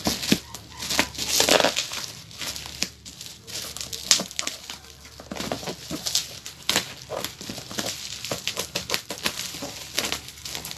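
Plastic packaging being crinkled and torn by hand as a tightly sealed parcel is worked open: dense, irregular crackling and rustling.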